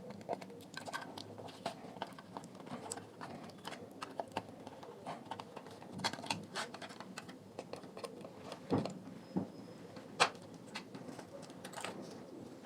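Irregular small clicks, taps and scrapes from prying a glued-in battery loose inside a plastic speaker housing, with two louder knocks about nine and ten seconds in.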